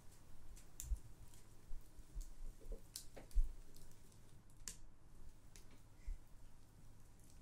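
Sparse, irregular light clicks and taps of cutlery on crockery during a meal, with a few soft low thumps.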